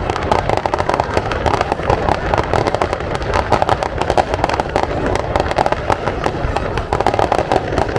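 Fireworks display going off in rapid, continuous succession: a dense barrage of bangs and crackles with no pause.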